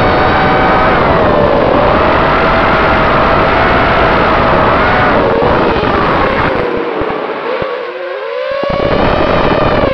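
Brushless motors and propellers of a Shendrones Krieger mini race quad whining in flight, heard through its onboard camera, the pitch rising and falling with the throttle. About seven seconds in, the low rumble drops away and the whine dips, then climbs again near the end.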